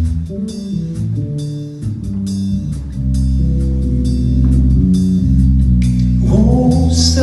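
Live band playing an instrumental intro, with bass notes, drum kit and cymbal strokes at a steady pulse; a new pitched part slides upward about six seconds in.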